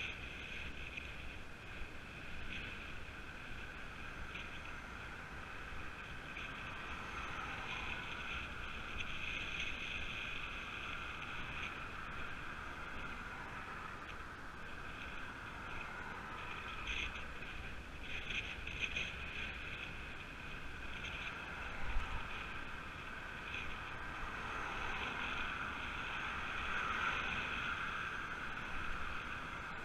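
Steady wind and road rush from riding a road bike, picked up by a camera mounted on the bike, with one brief bump about two-thirds of the way through.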